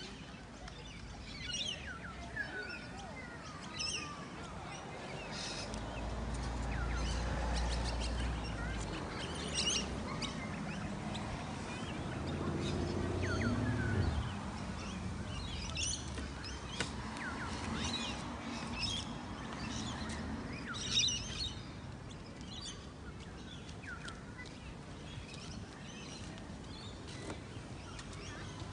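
Birds chirping, many short calls scattered throughout, with a low rumble for a few seconds about a quarter of the way in.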